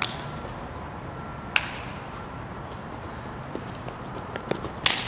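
Quick running footsteps slapping on a concrete sidewalk, closing in, then one loud, sharp hand slap near the end: a full-speed high-five. A single sharp click sounds about a second and a half in.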